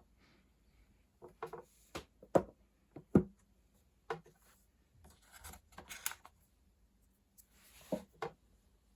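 Hands handling phone packaging and its contents: a string of sharp taps and knocks on a hard surface, the loudest a little after two and three seconds in, with scratchy rustling between them.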